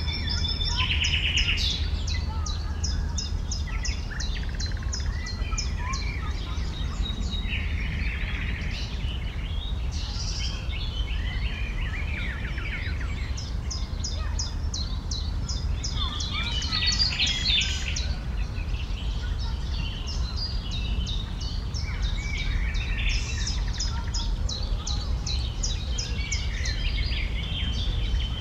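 Several songbirds singing and calling at once, some in runs of fast repeated high notes, over a steady low background rumble.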